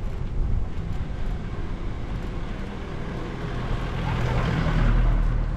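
Steady low rumble of wind and riding noise on a bike-mounted camera, swelling about four seconds in as a motor vehicle passes close by and then easing.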